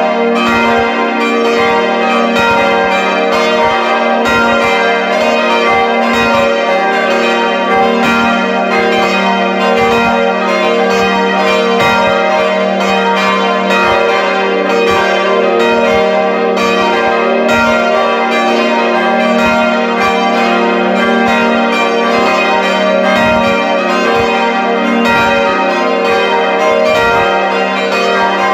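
Full peal of five swinging bronze church bells heard close up inside the belfry: four Friedrich Wilhelm Schilling bells of 1962 (strike notes g', b-flat', c'' and d'') and a Mathias Stapf bell of 1772 (e-flat''). Their clappers strike in an irregular, overlapping pattern over a continuous ringing hum.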